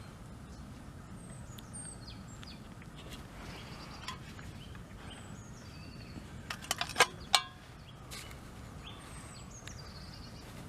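Birds chirping in short falling phrases over a faint outdoor background, with a quick cluster of sharp clicks or snaps a little past halfway.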